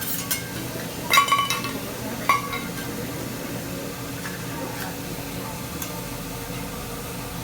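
Two ringing clinks of tableware, about a second in and again a second later, with a few fainter ticks, over a steady low hum.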